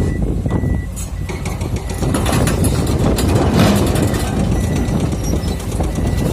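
Heavy diesel excavator engine running with a steady low rumble, with clanks of rock and metal a few times, loudest a little past the middle. A faint intermittent beeping alarm sounds near the start and again near the end.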